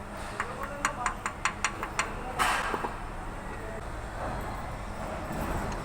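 A quick run of sharp metal clicks, about five a second, from hand tools working on metal parts, then a short loud scraping burst a little after two seconds, over a steady low rumble.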